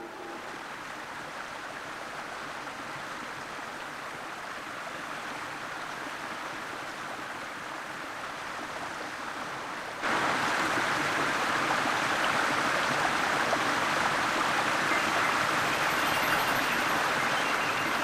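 Waterfall: a steady rush of falling water, which jumps clearly louder about halfway through.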